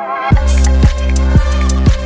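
Electronic dance music. A rising synth line gives way, about a third of a second in, to a heavy bass and a kick drum beating about twice a second.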